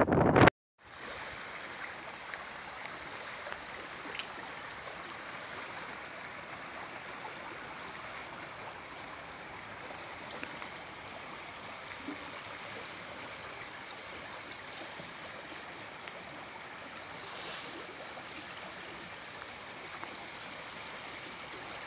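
Steady rush of running floodwater, even and unbroken.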